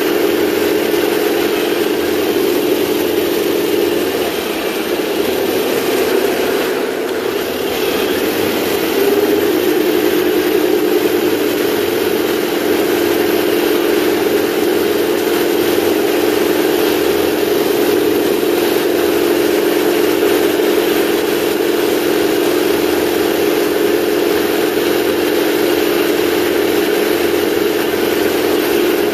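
Simulated tank engine sound from the speaker of a 1/16-scale RC tank's sound unit as the model tanks drive, a steady engine drone. The drone weakens about four seconds in and comes back strongly around nine seconds.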